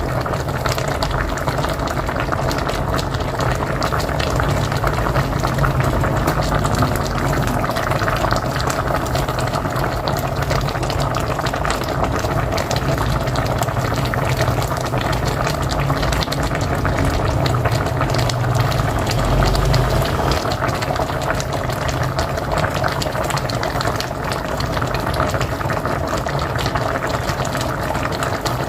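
A pot of mocotó (beef feet) boiling hard on a wood-burning stove: steady bubbling and popping of the broth.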